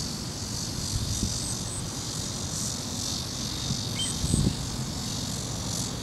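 Steady high-pitched chorus of insects that swells and fades slightly, over a low uneven rumble, with one brief faint note about four seconds in.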